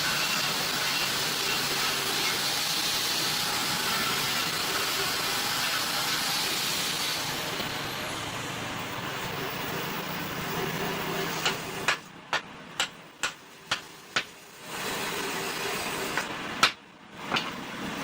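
Workshop sound: a steady hiss from a running machine, then a run of sharp knocks about two a second, and a few more knocks near the end.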